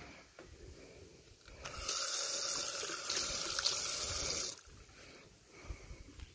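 Water running from a chrome tap into a ceramic sink basin. The steady splashing starts about two seconds in and stops about three seconds later as the tap is shut.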